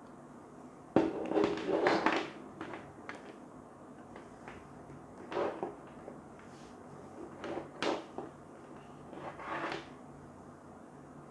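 Electrical cords being handled on a tabletop: a bundle of black power cables with plastic plugs and in-line switches is set down with a sharp knock about a second in and rustles and clatters for a second or so. After that come a few quieter scrapes and taps as the cables are sorted and a thin white connector cable is picked out.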